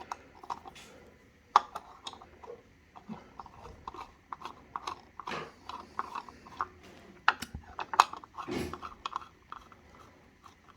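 Screwdriver undoing the long fixing screws of a wall dimmer switch plate: a run of small, irregular clicks and scrapes, with a few sharper ticks.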